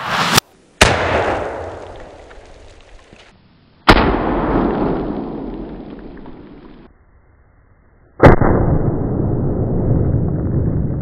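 Three blasts from a 12-gauge Remington 11-87 shotgun firing a 3-inch magnum slug, about a second in, four seconds in and eight seconds in. Each has a long decaying echo and is duller and more drawn out than the one before, as in slowed-down replays of the same shot.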